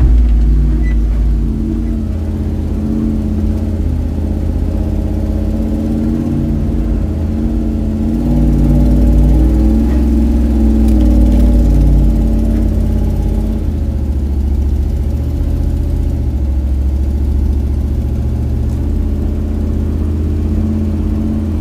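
Jeep Wrangler YJ engine running as the Jeep drives slowly along a trail, heard from inside the cab. Its pitch wavers with the throttle, and it gets a little louder for a few seconds around the middle.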